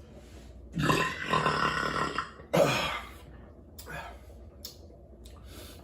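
A man's long, loud burp from drinking a carbonated IPA, lasting about a second and a half, followed by a shorter one.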